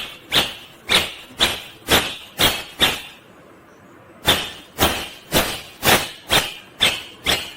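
Rose-ringed (ringneck) parakeet giving short, sharp screeching calls, about two a second: a run of seven, a pause of about a second, then another run.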